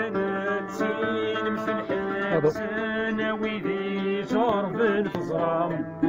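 Music: a song with a plucked string instrument and a singing voice.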